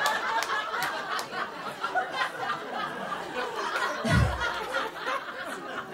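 Audience laughing at a stand-up punchline, with a low thump about four seconds in.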